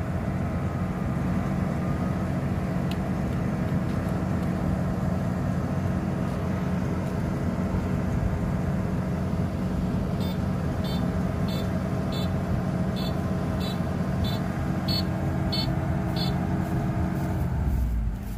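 Kubota crawler rice combine running steadily while it unloads grain through its auger into a bag on a truck. About ten seconds in, a run of short high beeps sounds, roughly one and a half a second, for about six seconds. Near the end the steady machine note drops and the sound gets quieter as it winds down.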